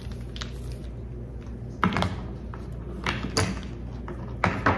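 A handful of light knocks and clicks as decorative objects are handled and set down on a coffee table, spread out over a few seconds, with a steady low hum under them.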